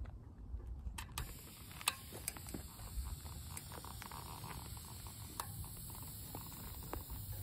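Air hissing steadily out of a fat bike's front tyre valve as it is held open to deflate the tyre, starting about a second in, with a few sharp clicks from the valve.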